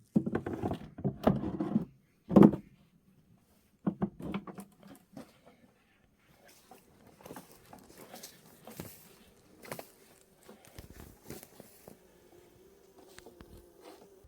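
Knocks, scrapes and clatter of wooden beehive parts being handled, loudest in the first couple of seconds with one sharp hit. A faint steady buzz of honey bees comes in near the end.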